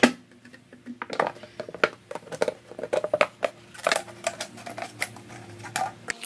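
Scissors cutting through a thin clear plastic drink bottle: an irregular run of sharp snips, with the plastic crackling as it is cut and handled.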